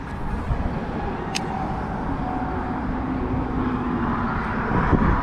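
Road traffic by the bridge: a steady rushing noise of a vehicle going by, heavy in the low end and growing louder toward the end, with one short click.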